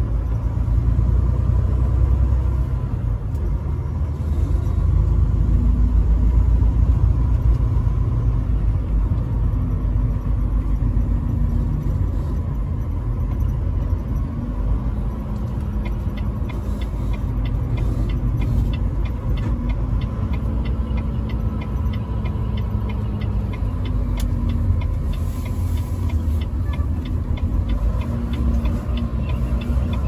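Steady low engine and road rumble heard inside a moving truck's cab. About halfway through, the turn signal starts ticking evenly, a few clicks a second, as the truck turns at the end of the exit ramp.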